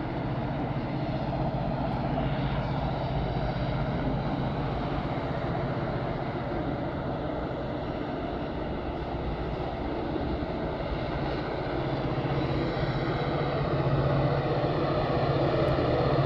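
Renfe class 310 diesel locomotive's engine droning steadily at a distance, growing louder over the last few seconds as it approaches, hauling a container train. Road traffic noise lies under it.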